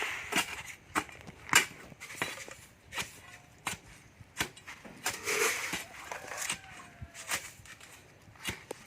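A series of irregular sharp knocks and clatters, roughly one or two a second, like hand work with tools or materials.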